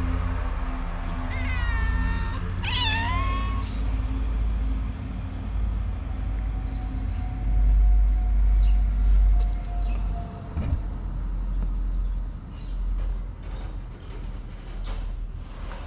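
Stray cat meowing twice, two rising and falling calls about a second and three seconds in, over a steady low rumble.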